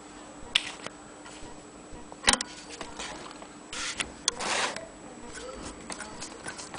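Antique Willcox & Gibbs sewing machine being handled with cloth under its presser foot: a few sharp metallic clicks, the loudest about two seconds in, and short rustling of fabric a little before and after the midpoint.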